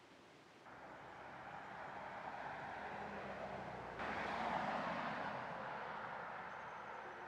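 A passing road vehicle: a rushing tyre and engine noise that grows louder, peaks about halfway through, then slowly fades.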